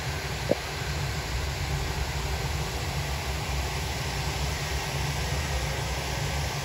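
Fan-type snow cannon running: a steady low whirring rumble with a hiss of blown spray. A short click about half a second in.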